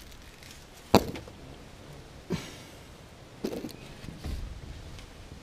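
Three sharp taps or knocks: a loud one about a second in, then two softer ones about two and three and a half seconds in.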